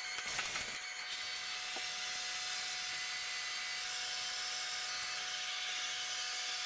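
Toyoda horizontal CNC machine drilling the adapter plate: a steady hiss of spindle and cutting, with a faint steady whine.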